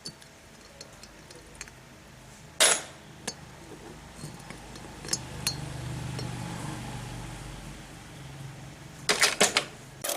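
Metal clinking and knocking as small engine parts are handled and set down: light scattered clicks, one sharp knock about two and a half seconds in, and a quick run of knocks near the end, over a faint low hum in the middle.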